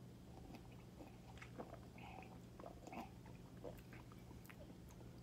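Faint sipping and swallowing of soda from a glass, with scattered small mouth clicks and lip smacks as it is tasted, over a low steady room hum.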